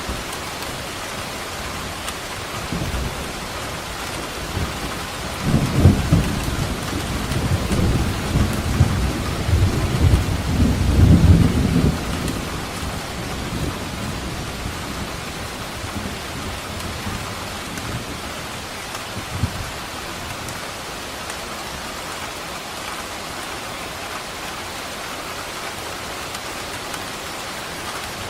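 Steady heavy rain with a long roll of thunder that rumbles in about five seconds in, peaks twice and fades away after about eight seconds.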